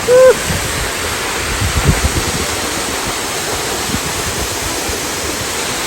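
Waterfall water rushing in a steady, loud, even wash of noise. Right at the start there is one brief pitched call that rises and falls.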